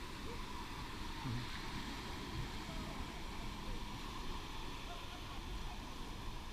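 Beach ambience: a steady wash of surf and wind on the microphone, with faint voices in the background.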